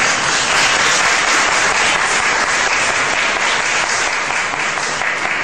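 Audience applauding, dense steady clapping throughout.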